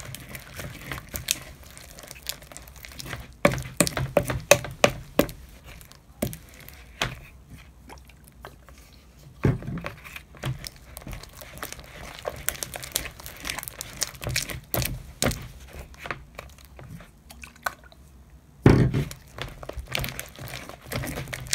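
Wooden spoon stirring thickening clear slime, made from clear glue and contact solution, in a bowl: irregular sticky clicks and scrapes, with a few louder knocks.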